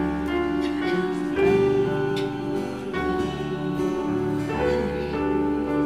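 A church band's electric keyboard and acoustic guitar playing a slow hymn with held, sustained chords.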